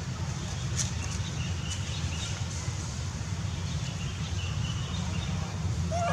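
Outdoor ambience: a steady low rumble with faint, high bird chirps and a few light clicks. A chicken clucks once at the very end.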